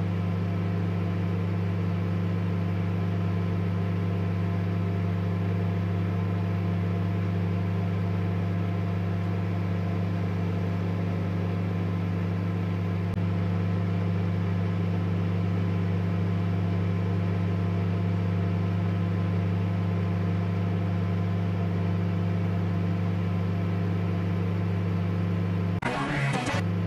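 A steady low hum made of several held tones that does not change; a short burst of noise breaks in about a second before the end.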